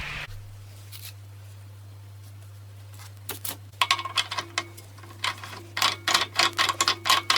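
A steady noise, likely the angle grinder's sanding attachment, cuts off just after the start, leaving a low steady hum. From about three seconds in come repeated metallic clinks and taps that ring briefly at the same pitch each time, like metal parts knocking together.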